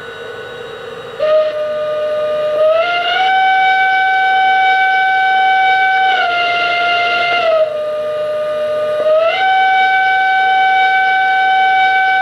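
Sound system of a Lionel Pennsylvania CC2 0-8-8-0 O-gauge model steam locomotive blowing its Pennsylvania "hooter" whistle: one long blast starting about a second in, its pitch sliding up, sagging lower in the middle, then rising again before bending down at the end.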